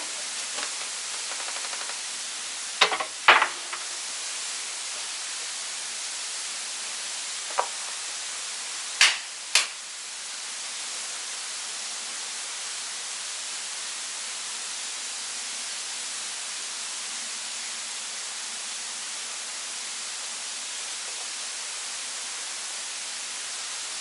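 Steady rushing hiss of a waterfall. A handful of short, sharp knocks come through it in the first ten seconds.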